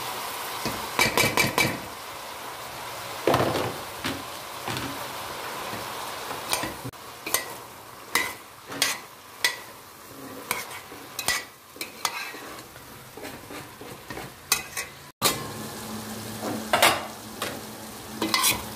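Diced vegetables in tomato paste sizzling in a stainless steel pot while a metal spoon stirs them, with repeated sharp clinks and scrapes of the spoon against the pot. Diced eggplant tumbles into the pot about a second in.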